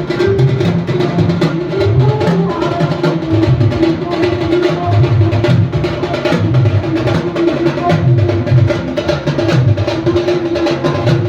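Punjabi pop song playing, an instrumental stretch without vocals, driven by a steady heavy drum beat.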